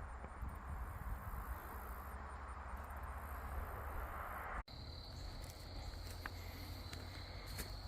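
Faint, steady outdoor noise with a low rumble. It breaks off in a sudden cut about two-thirds through, and after the cut a steady high, thin buzz comes in, with a few faint ticks.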